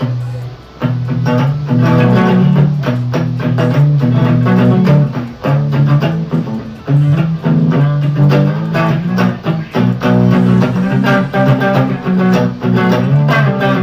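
Custom-built hybrid guitar playing a picked riff in a clean tone on its neck pickup. The low notes come in repeated phrases with brief breaks between them.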